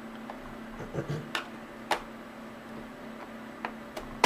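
A handful of small, sharp plastic clicks and taps from a laptop's bottom access cover being handled and unclipped, over a steady faint hum.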